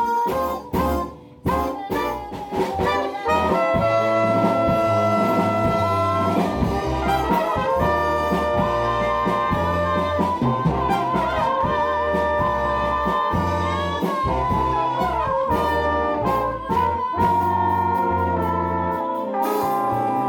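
Jazz band with a brass and saxophone horn section playing a bossa nova. It opens with short, clipped chords, and from about three seconds in the horns hold long chords over changing bass notes.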